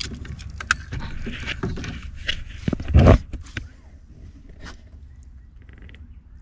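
Handling noise in a metal fishing boat: scrapes, clicks and knocks, with one heavy thump about three seconds in, then it settles to a quieter low background.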